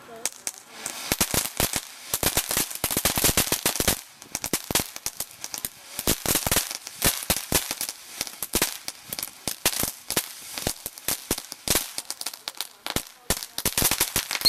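Ground fireworks fountains spraying sparks with a rapid, uneven crackle of sharp pops, densest in the first few seconds, easing briefly about four seconds in, then carrying on.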